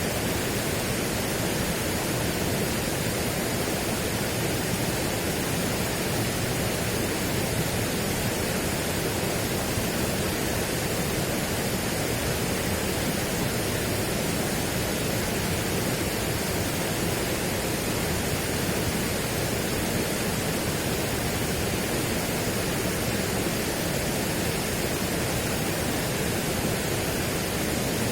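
Steady, unchanging rushing noise spread evenly from deep to high pitches, with no swells, drops or separate sounds.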